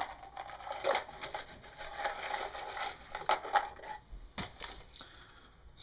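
Small metal snow chains for an RC truck being handled, a rustling clatter with several sharp clicks, dying down for the last couple of seconds.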